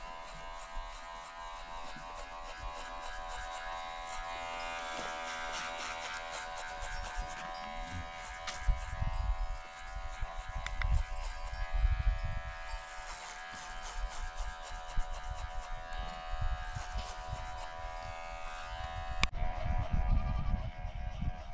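Electric hair clippers running with a steady buzz, cutting hair. Low rumbles and bumps come in from about eight seconds in.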